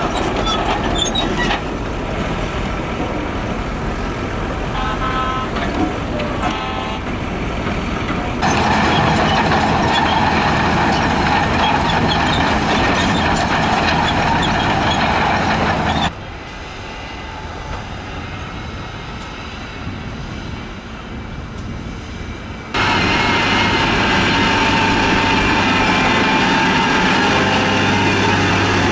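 Diesel engines of heavy road-construction machinery running, heard in four segments that cut off abruptly about 8, 16 and 23 seconds in. The third segment is quieter. The last has a steady low engine hum with a whine above it.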